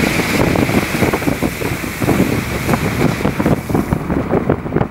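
Wind blowing hard across the microphone: a steady rush with continual buffeting thumps.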